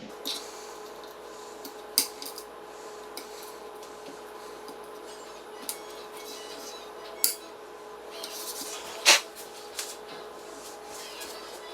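Hand tools and small metal hardware clinking and tapping while the hydrofoil wing is unscrewed from an eFoil: a few sharp clicks, the loudest about nine seconds in, over a steady faint hum.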